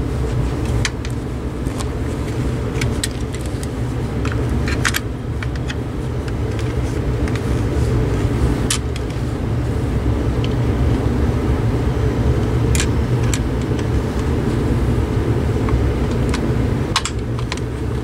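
Hand-tool and handling noise: wire cutters snipping wire, then AA batteries and wire being worked into a plastic battery compartment, giving scattered sharp clicks over a steady low rumble.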